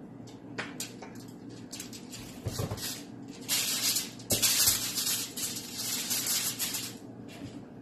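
Aluminium foil crinkling and crackling under hands rubbing oil into raw pork ribs, with a few soft knocks. The crackling is densest from about halfway through until near the end.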